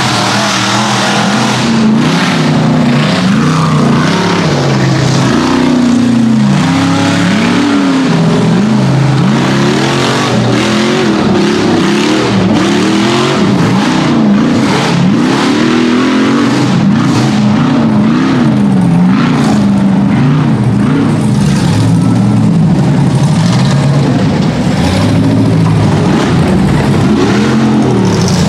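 Rock bouncer buggy's engine revving hard, its pitch rising and falling over and over with quick throttle changes as it climbs a steep dirt hill.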